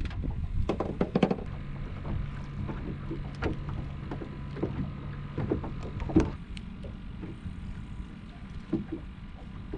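Water slapping against an aluminum boat's hull, with scattered knocks and clicks from fishing tackle and a catfish being reeled in and swung aboard; the loudest knock comes about six seconds in. A low steady hum runs through the first half.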